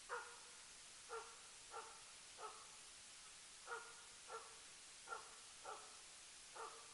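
Jämthund (Swedish elkhound) giving stand barks, baying a moose it is holding at bay. Nine faint single barks come at an uneven pace of roughly one a second.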